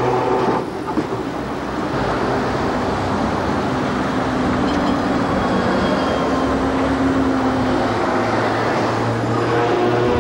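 Busy street traffic: vehicle engines running and passing, with double-deck electric trams on the street. Steady throughout, with a slight dip about half a second in.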